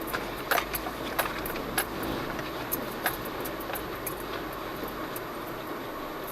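Small loose items clinking and rattling inside a Jeep Cherokee Trailhawk's cabin as it crawls over a rough off-road trail, with irregular sharp clicks over the steady low noise of the vehicle moving.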